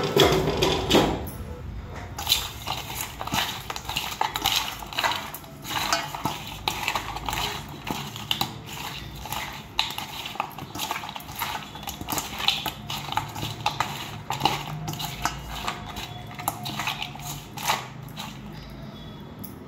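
Hands mixing pieces of kawai fish (climbing perch) with salt and spice in a stainless steel bowl, making irregular clinks, knocks and scrapes against the metal.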